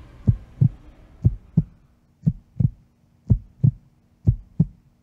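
Heartbeat sound effect: low double thumps, lub-dub, repeating about once a second, five pairs in all. A faint steady hum comes in about two seconds in.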